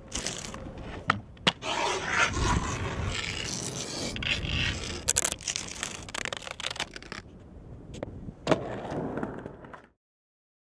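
Skateboard grip tape being handled, its paper backing peeled off and the sheet rubbed down: uneven scraping and rustling with a few sharp clicks. It stops about a second before the end.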